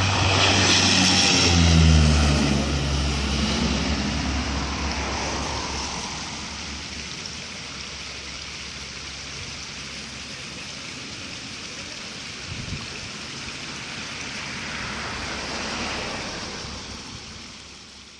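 Twin-engine propeller aircraft passing close by at the runway end: the propeller and engine drone drops in pitch as it goes past, loudest about two seconds in, then the engine noise trails off slowly and fades out near the end.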